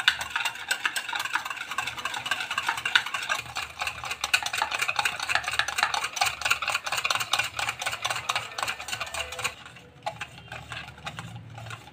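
Metal spoon beating instant coffee, sugar and water against the inside of a stainless steel mug: a fast, continuous clinking and scraping as the mixture is whipped toward a thick froth. It turns quieter near the end.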